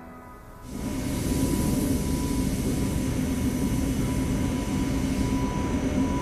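Steady mechanical drone, starting about a second in: an even noise over a low hum, with a faint high tone that comes and goes.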